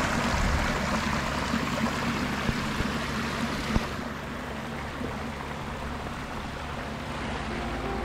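Water splashing and rushing over the boulders of a newly built pondless waterfall and stream. It is a steady noise that gets softer and less hissy about four seconds in.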